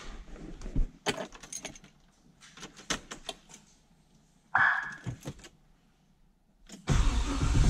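Keys rattling and clicking at the ignition, a brief whirr about four and a half seconds in, then the cammed LS1 V8 starts up near the end and keeps running.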